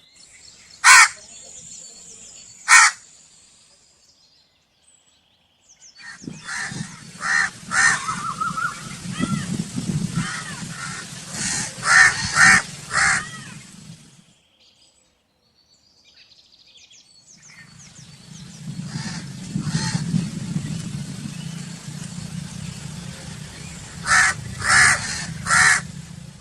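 Crows cawing in separate recordings. Two sharp caws come first. After a pause there is a run of repeated caws over a steady low background din. After a short gap, another stretch of that din ends in three quick caws.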